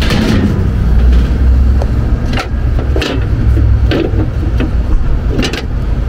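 Rooftop AC condensing unit running, its Copeland scroll compressor and condenser fans giving a steady low rumble. Scattered clicks and knocks of handling are heard over it.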